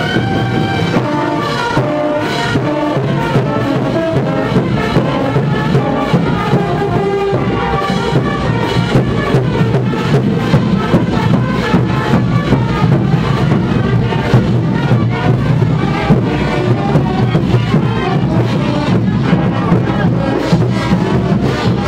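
Festive procession band music with a quick, steady beat, played continuously, with crowd noise underneath.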